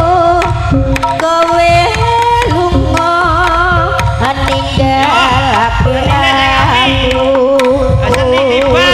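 Live Javanese jaranan music: hand-drum (kendang) strokes driving a steady beat under a wavering melody line.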